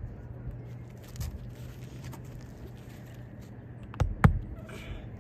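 Hand hammer striking twice near the end, driving nails to fasten asphalt roof shingles back down, over a low steady hum.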